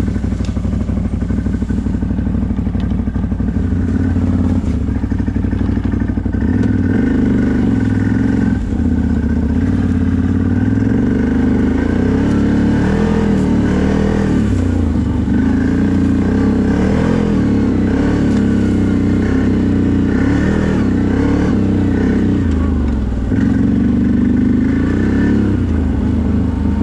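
CFMOTO 1000 ATV's V-twin engine running under way on a trail, its revs rising and falling repeatedly as the throttle is worked.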